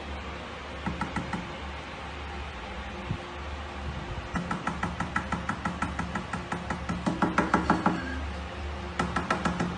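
Rapid runs of light knocking or tapping, about ten taps a second, in three bursts: a short one about a second in, a long one from about four to eight seconds that grows louder toward its end, and another short one near the end.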